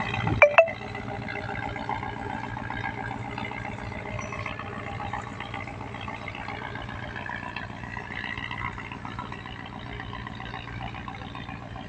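Diesel engine of a passing river cargo barge running with a steady drone. About half a second in come two sharp clicks, the loudest sounds, and then the engine continues a little quieter.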